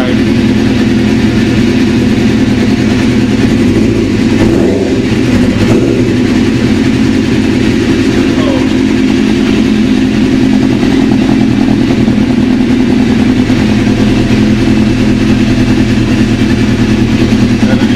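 A 2003 Suzuki GSX-R600's inline-four engine idling steadily through a newly fitted aftermarket Micron muffler.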